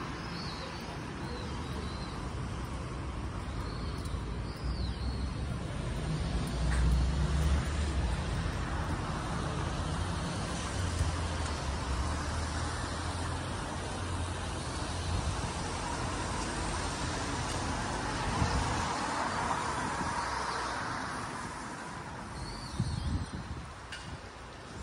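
Steady city traffic noise, with a stronger low rumble for several seconds around a third of the way in. A bird chirps briefly a few times.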